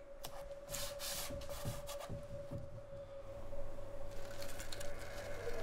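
Masking tape being worked by hand on a painted canvas: short scratchy rubbing strokes, over a faint steady hum.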